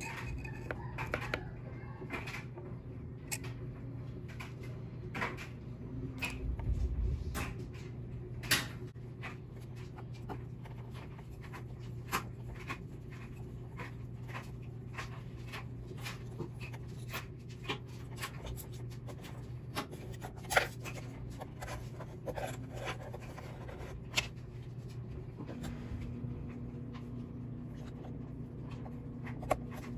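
Hex driver working screws out of an RC buggy's carbon-fibre shock tower: scattered light clicks and scrapes of the tool in the screw heads and of parts being handled, over a steady low hum.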